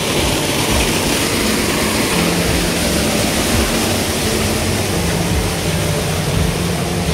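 Steady rush of fast-flowing stream water, with a faint low hum that comes and goes.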